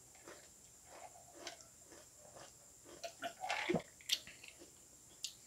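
A person sipping and swallowing a cocktail from a plastic cup: faint mouth and swallowing sounds with small clicks, and a louder cluster of sounds about three and a half seconds in as the cup comes away from the mouth.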